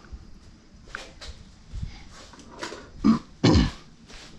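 A man coughing and clearing his throat, two loud short bursts about three seconds in.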